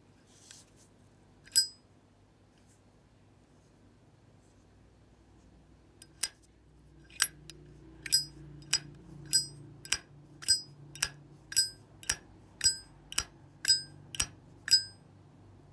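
Zippo lighter lid being flipped open and snapped shut again and again: a ringing metallic ping on each opening alternates with a plainer click on each closing. There is one click early, then a steady run of about two a second through the second half.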